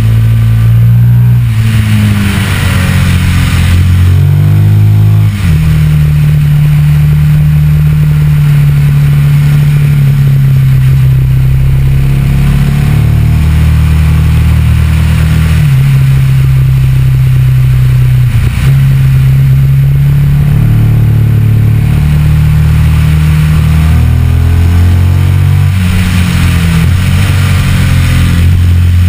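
Ducati Multistrada 1200's L-twin engine running under way, its note holding steady and then stepping to a new pitch a few times as gears are changed, with wind rushing over the fork-mounted microphone and swelling near the start and near the end.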